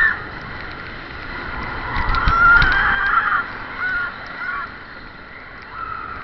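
Big Thunder Mountain mine-train roller coaster running through a dark tunnel: high, wavering metallic squeals of the wheels on the track, loudest about two to three seconds in, over a low rumble and a few clacks.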